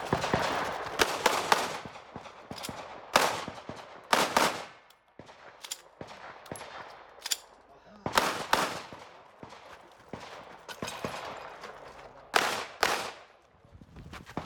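9mm Glock pistol fired in rapid pairs and short strings, with brief pauses between groups as the shooter moves between targets during a timed stage.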